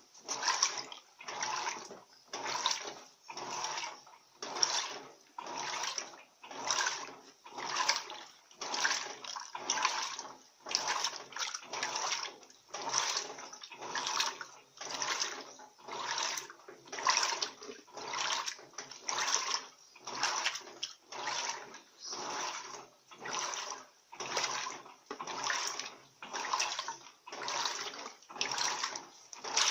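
Electrolux Turbo Economia LTD15 15 kg top-loading washing machine agitating a load of towels in water. Each stroke of the agitator gives a swish and slosh, about one a second in a steady rhythm, as the wash stage runs.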